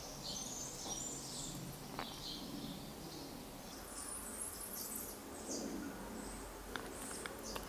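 Faint, irregular high-pitched chirping in the background, with a few soft clicks.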